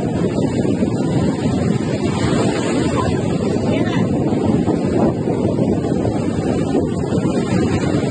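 Wind buffeting the microphone: a loud, steady low rumble without letup.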